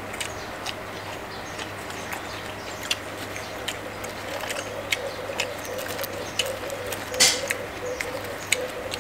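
Eating sounds: crisp fried salmon being chewed and torn apart by hand, a scatter of small crunches and clicks with a louder crunch about seven seconds in. A faint low wavering tone sits in the background from about halfway.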